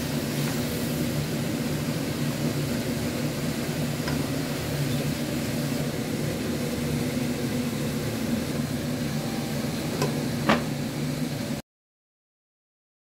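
Chicken pieces cooking in a nonstick pan over a steady low hum, with a few light knocks of a wooden spatula on the pan, the sharpest about ten and a half seconds in. The sound cuts off suddenly near the end.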